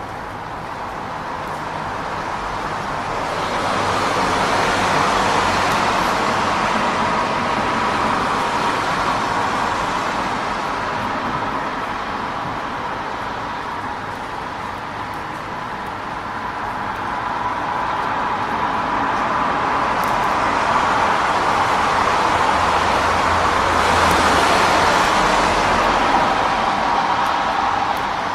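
Rainy city street: a steady hiss of rain and wet road noise, with traffic swelling and fading twice as vehicles pass on the wet road.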